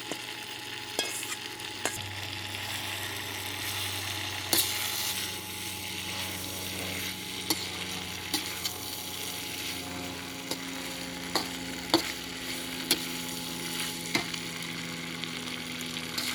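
Beef and green beans sizzling in a hot pan in black bean and oyster sauce while a spatula stirs and tosses them, with scattered sharp clicks and scrapes of the spatula on the pan. A steady low hum runs underneath.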